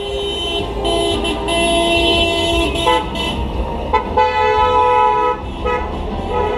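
Car horns of a wedding convoy honking in celebration: several horns at different pitches sound together in long, overlapping blasts that break off and start again, over the low rumble of passing cars.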